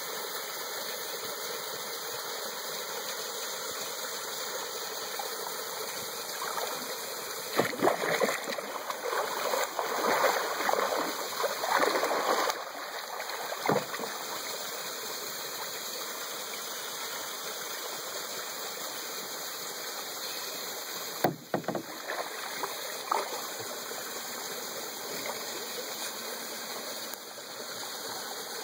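Creek water flowing steadily, with a stretch of louder, irregular splashing about a quarter of the way in as fish thrash at the surface, and a few short, sharp splashes later on.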